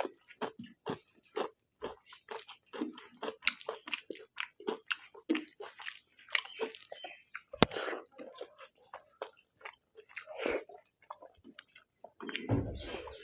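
Close-up eating sounds: mouthfuls of egg curry and rice being chewed, with quick wet smacks and clicks several times a second. A person's voice-like sound comes in near the end.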